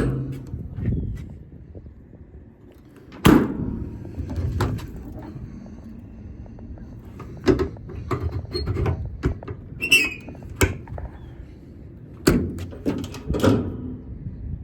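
Metal compartment doors and latches of a Knapheide service truck body being opened and shut: a series of sharp clunks and bangs at irregular spacing, over a steady low rumble.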